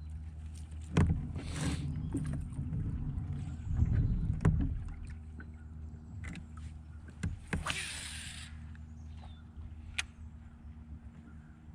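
Knocks and handling noises on a fishing kayak, with a louder rumble of movement about four seconds in and two short hissing bursts, over a steady low hum.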